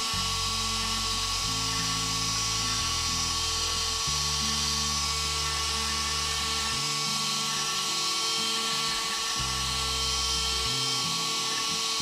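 MillRight Mega V CNC router's spindle running with a steady high whine as a 90-degree V-bit engraves pine. Background music with a low bass line that changes note every second or two is mixed in.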